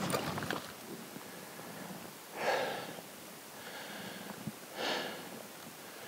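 A person breathing hard while hiking: two heavy breaths, about two and a half seconds apart, after a few crunching footsteps on gravelly ground at the start.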